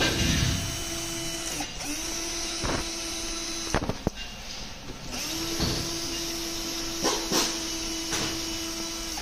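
Cordless drill-driver running in three stretches with short pauses between, a steady whine, as it drives small screws into plastic clips; a few light clicks in between.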